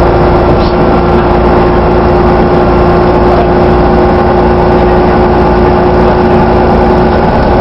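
Dennis Trident ALX400 double-decker bus running, a steady low engine drone with a constant whine held over it: the strange sound this bus makes.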